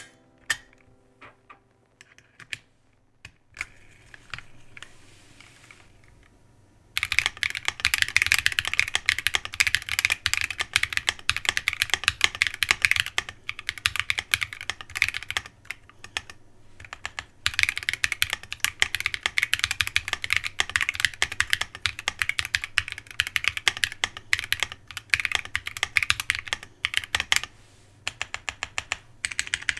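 Typing on an LW-67 65% mechanical keyboard built with a carbon-fibre plate, Kang White linear switches and PBT keycaps, and no case foam. A few scattered keystrokes come first, then rapid continuous typing from about seven seconds in, broken by a short pause midway.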